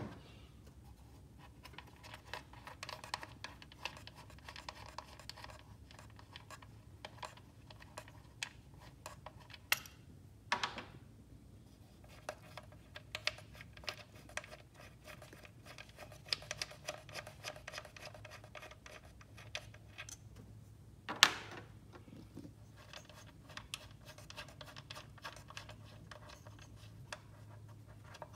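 Irregular small clicks and scrapes of hand tools and sockets being handled during spark plug work, with two louder knocks, one about ten seconds in and one about twenty-one seconds in.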